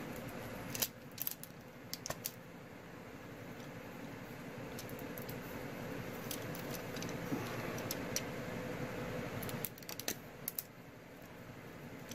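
Handheld rotary leather punch being squeezed through thick leather: a rough, steady noise that slowly builds for several seconds and stops about two and a half seconds before the end. Scattered metallic clicks and rattles from the punch's handles and turret come at the start and again near the end.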